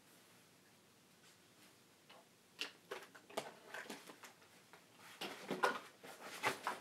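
Small items being handled and packed into a fabric sports bag: quiet room tone at first, then a run of short clicks, knocks and rustles from about two and a half seconds in, growing busier near the end.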